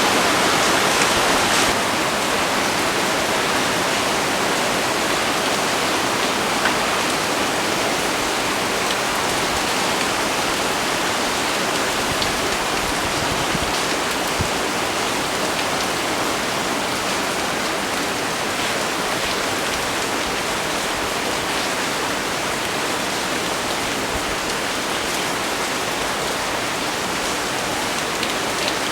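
Heavy rain pouring steadily, a dense even hiss with now and then a faint drip tick; it is a little heavier for the first couple of seconds.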